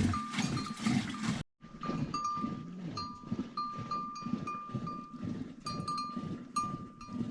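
A flock of sheep bleating, with the bells on the animals clinking again and again in short ringing notes. The sound drops out for a moment about a second and a half in.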